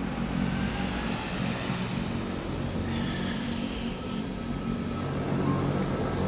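Modern Wengernalpbahn electric rack train passing close by, a steady low motor hum mixed with the running noise of its wheels and cog drive, getting a little louder near the end.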